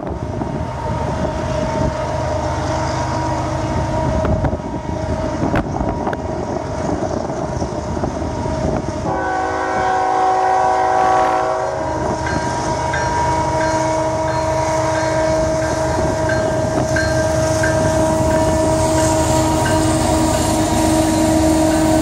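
Union Pacific diesel freight locomotive approaching, its air horn sounding long blasts, with a different chord about nine seconds in. Underneath, the rumble of the engines and train grows louder as it nears.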